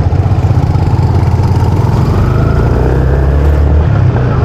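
Small motorcycle's engine running under way, its pitch rising about two seconds in as the bike speeds up, over a steady low rumble.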